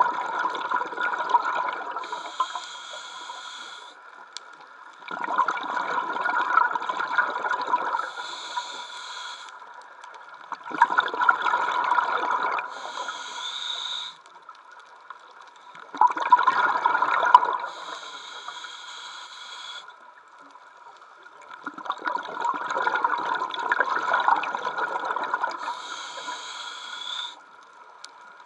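Scuba diver breathing through a regulator underwater: five breaths, each a gurgling rush of exhaled bubbles followed by a shorter, higher hiss of the inhale, about every five to six seconds. A faint steady tone runs underneath.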